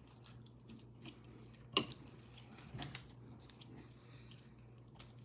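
A few sharp clicks and clinks of kitchen utensils and containers handled while mixing slime, the loudest about two seconds in and a smaller one a second later.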